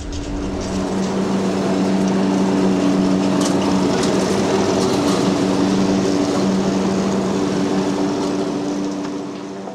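John Deere Z335E zero-turn mower's air-cooled V-twin engine running steadily as the mower cuts grass, a steady hum over the engine noise. The sound fades out near the end.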